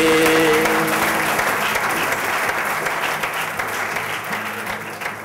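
Audience applauding after a sung verse ends. The singer's last held note fades about a second in, and the clapping dies away toward the end.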